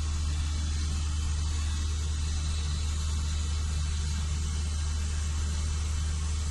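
Steady low drone of a fishing vessel's engine and machinery, with an even hiss over it.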